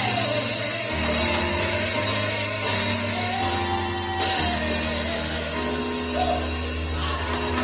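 Gospel music playing, with drum kit, a bass line that steps between notes, and a long held melody line above.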